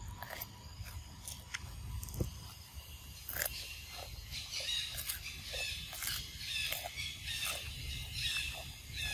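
A macaque chewing a crisp cucumber: a run of short, sharp crunching clicks, a few at first and several a second from about three seconds in, over a steady low rumble.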